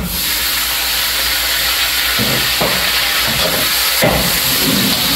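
Food sizzling in hot oil in a pan, starting suddenly and holding steady.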